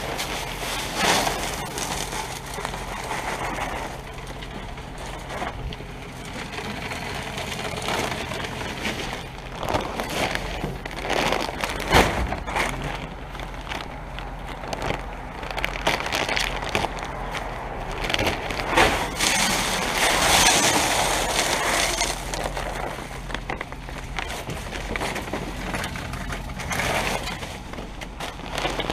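Ford F450 dump truck out salting: a steady engine hum under an uneven, gritty rush of rock salt being spread, swelling and fading several times, with one sharp knock about twelve seconds in.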